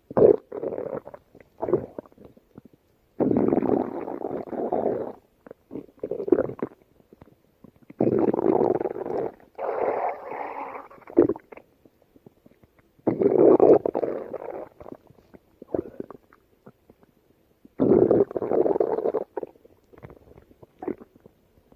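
Stomach growling and gurgling in repeated bouts, each a second or two long, with short quiet gaps between them.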